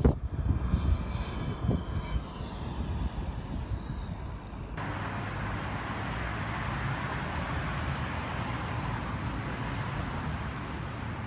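Steady vehicle and road noise with a low rumble. About five seconds in it changes abruptly to an even, steady hiss.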